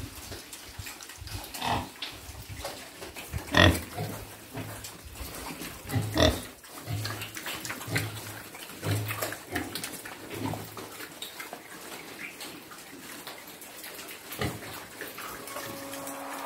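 Young pigs grunting as they feed, with short low grunts coming irregularly, about one every second or so. Two louder calls stand out a few seconds in.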